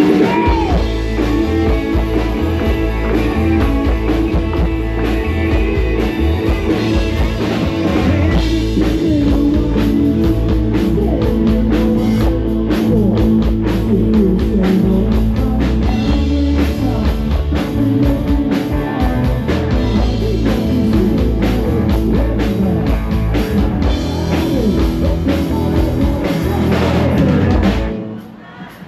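Live rock-and-roll band playing loudly, with electric guitars over a driving drum kit and bass. The band stops abruptly about a second before the end.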